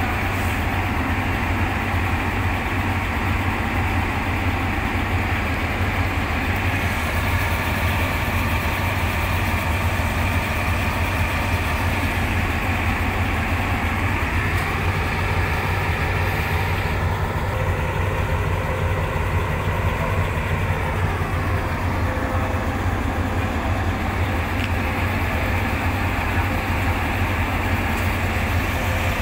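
Diesel-electric locomotive engines running with a steady deep drone. Partway through, a pitched engine tone rises and then falls back some seconds later as the locomotive shunts.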